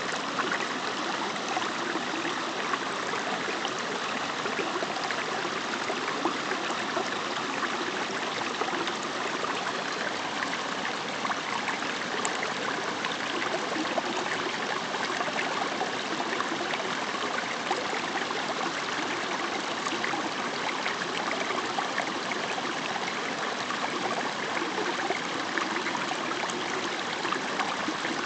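Running water of a small forest stream: a steady, unbroken babble with no change in level.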